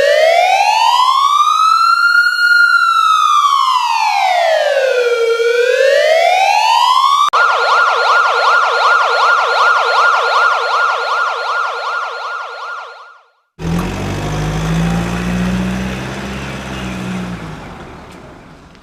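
Electronic emergency-vehicle siren: one slow wail rising and falling over about seven seconds, then switching abruptly to a fast warble for about six seconds. After a short break, a vehicle engine runs and fades away near the end.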